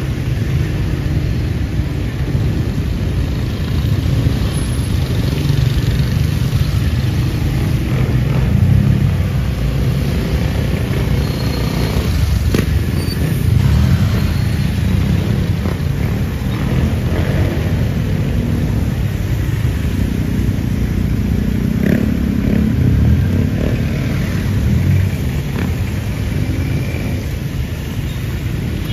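Street traffic in the rain: motor vehicles and motorcycles running and passing, a continuous low rumble over a steady hiss, with a sharp knock about twelve seconds in.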